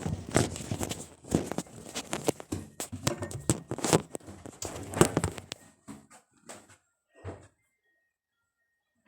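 Rapid, irregular knocks and thumps for about five and a half seconds, then a few softer scattered ones.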